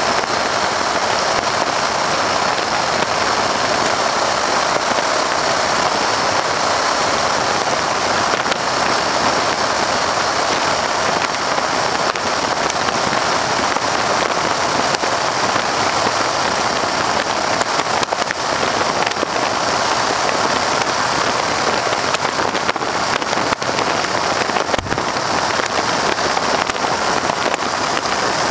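Steady, loud rush of wind and engine noise in the open cockpit of a PT-13 Stearman biplane in flight, with its radial engine running beneath the wind buffeting the microphone.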